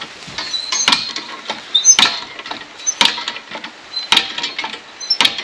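Old hand water pump being worked, its handle squeaking and clunking with each stroke about once a second. The pump is not yet drawing water.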